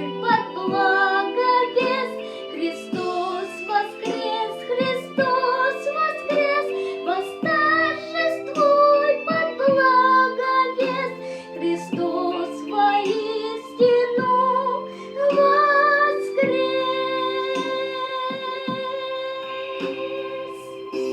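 Song with a singing voice over instrumental accompaniment with plucked notes. The last few seconds end on a long held note with vibrato over a sustained chord.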